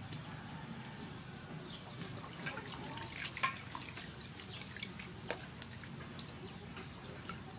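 Water splashing and dripping in a stainless steel bowl as lemongrass stalks are rinsed by hand, in scattered small splashes, the loudest a little past three seconds in.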